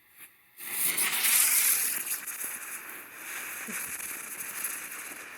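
Kapow spinning ground firework igniting about half a second in with a sudden loud hiss of spraying sparks, then hissing and crackling on more quietly.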